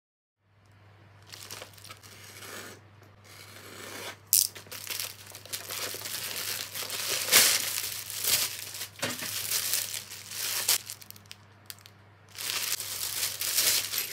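Clear plastic packaging crinkling and rustling in irregular bursts as a folded fabric item sealed in a plastic bag is handled and unpacked, with a faint steady low hum underneath.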